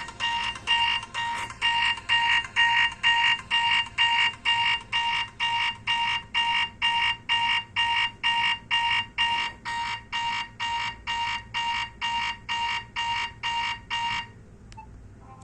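BlackBerry Curve 9300 preloaded ringtone: a fast, even train of electronic alarm-style beeps, about three a second, each one steady pitch. The beeps cut off suddenly about a second before the end.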